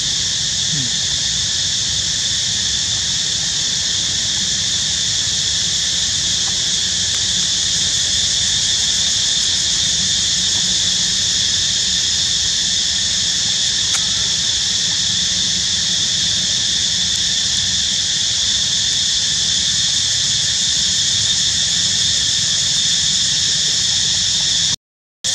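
A steady, high-pitched insect chorus drones without a break over a low rumble, and cuts off abruptly near the end.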